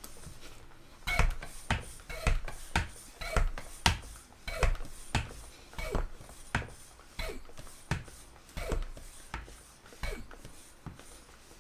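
Floor-standing hand pump being worked in a steady rhythm, about one stroke a second, each stroke heard as a pair of short sounds, starting about a second in. It is pumping air through a hose into a paintball air tank that is already near full pressure.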